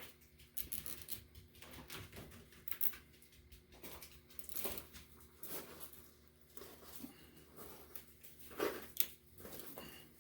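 Hand work on small parts: irregular faint clicks, taps and rustles, two sharper clicks near 3 and 9 seconds in, over a steady low hum.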